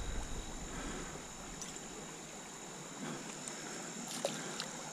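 Steady rush of a trout stream's flowing water, with a few faint ticks.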